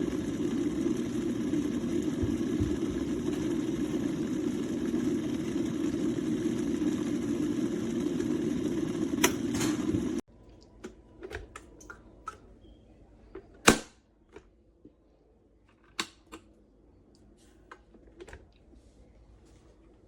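COMFEE 1.7L stainless steel electric kettle heating water with a steady low rumble, which cuts off suddenly about ten seconds in. Then come scattered small clicks and knocks of handling, the loudest a few seconds after the rumble stops.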